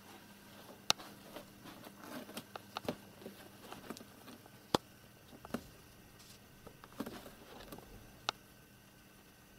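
Light, irregular taps and scratches of a cat's paw and claws on a cardboard box: several sharp clicks spaced unevenly, with soft rustling between them.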